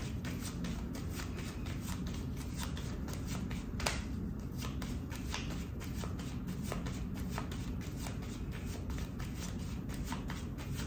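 A deck of 32 playing cards being shuffled by hand: a fast, steady patter of small card flicks and slaps, with one sharper snap about four seconds in.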